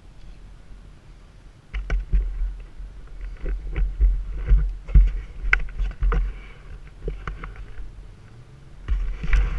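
Dirt bike riding over rocky gravel: the 2006 Suzuki RM-Z250's single-cylinder four-stroke engine runs low underneath. From about two seconds in, gusty wind rumble on the microphone comes and goes, with scattered clicks and knocks of stones and chassis rattles.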